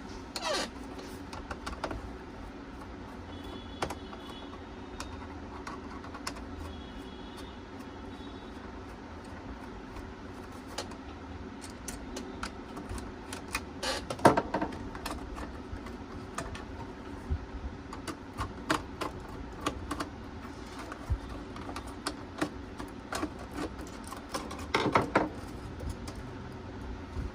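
Scattered clicks and knocks of hands working on parts inside a desktop computer case, with a louder knock about halfway and another near the end.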